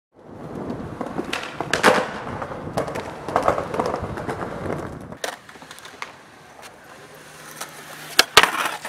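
Rough scraping and clattering for the first half, then a skateboard rolling on concrete with two sharp clacks of the board close together near the end.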